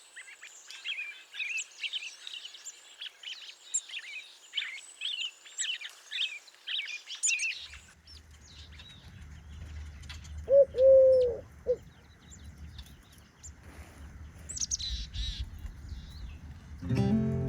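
Wild birds chirping and twittering, many quick high calls overlapping. About eight seconds in, a low rumble comes in under sparser chirps, and a single louder, lower call rings out about ten seconds in. Acoustic guitar music starts right at the end.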